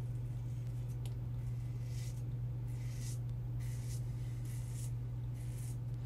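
Double-edge safety razor scraping through two to three days of stubble on the first pass, in a series of about six short strokes. A steady low hum runs underneath.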